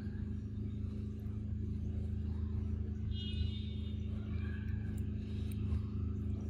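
A steady low hum of an engine running, with a brief high chirp about three seconds in.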